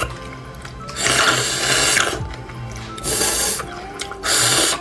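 Wet slurping as bone marrow is sucked out of the end of a cooked bone: three loud slurps, the first about a second in and lasting about a second, the others about three seconds in and near the end, over background music.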